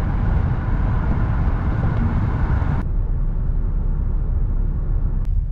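Road noise heard inside a moving car at road speed: a steady low rumble of engine and tyres with a hiss of wind and tyre noise over it. The hiss thins out abruptly about three seconds in.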